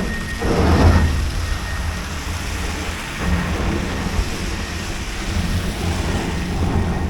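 Wind buffeting the microphone in a snowstorm: a steady low rumble with hiss, swelling into a louder gust about a second in.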